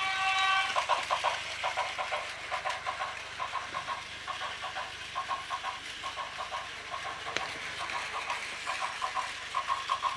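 Battery-powered Plarail toy train running on plastic track: its small motor and gears whir in rapid uneven pulses with clicking.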